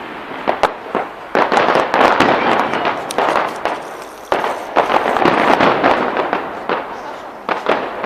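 Fireworks going off: a few sharp bangs in the first second and a half, then two long stretches of dense crackling with pops through it, the first about three seconds long and the second about three seconds.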